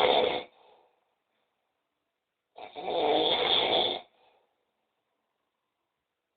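A person snoring loudly in slow, separate snores. One snore ends about half a second in, and a second, about a second and a half long, comes in the middle.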